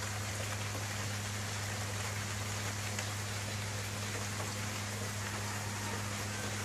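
Light rain falling steadily, with a steady low hum underneath.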